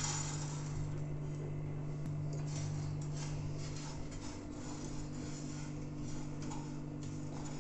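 Dry, broken instant noodles being stirred and pushed around a nonstick pan with a silicone spatula as they dry-roast: faint, irregular scratchy rustles over a steady low hum.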